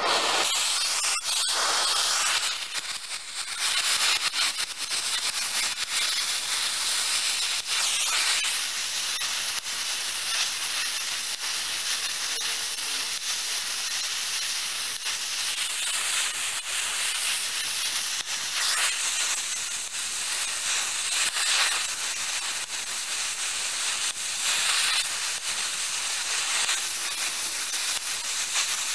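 Oxy-acetylene torch flame hissing steadily, held on a rock to melt it.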